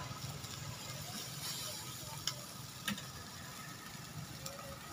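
Faint steady sizzling hiss of skewered fish and meat over a charcoal grill, with two sharp clicks about two and three seconds in.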